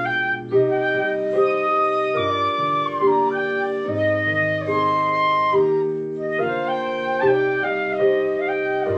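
Two shinobue (Japanese bamboo transverse flutes) playing a melody together in held notes, changing pitch every half second or so.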